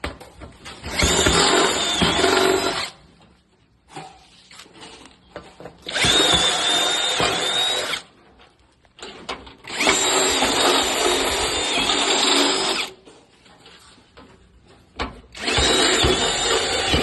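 A power tool running in four bursts of about two to three seconds each, each starting and stopping abruptly, with a steady high-pitched whine over the motor noise.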